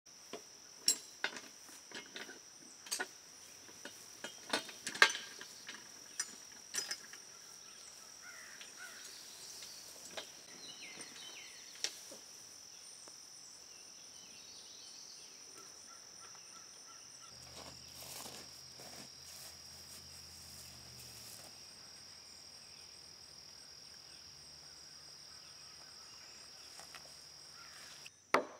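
Metal clanks and clicks from a wheeled logging arch as its handle is worked to lift and move an oak timber hung on its chain, most of them in the first several seconds. Under them, a steady high chirring of insects.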